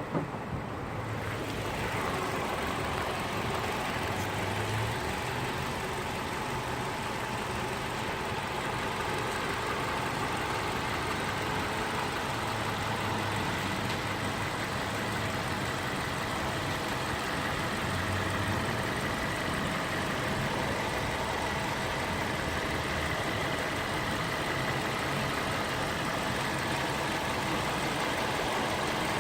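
Hyundai Elantra engine idling steadily, the engine whose ticking or knocking noise is the subject. A short sharp sound right at the start, then the running noise builds over the first couple of seconds and holds even.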